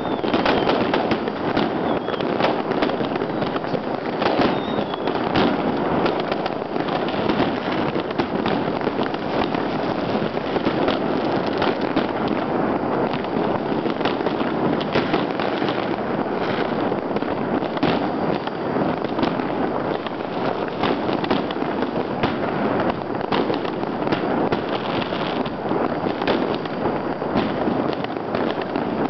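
Fireworks and firecrackers going off in a dense, unbroken barrage: continuous crackling with many sharp bangs over it.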